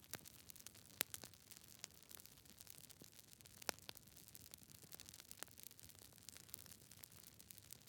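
Wood fire crackling quietly: scattered sharp pops and snaps over a faint hiss, the loudest pops about a second in and near the middle.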